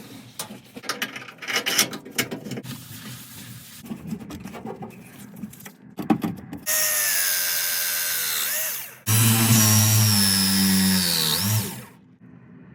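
A power tool motor running in two long bursts, the second louder, each dipping in pitch as it is let off, after several seconds of knocks and rattles.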